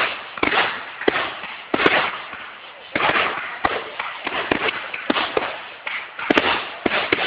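Fireworks finale barrage: aerial shells bursting in quick succession, a sharp bang every half second or so, each trailing off into echo and crackle.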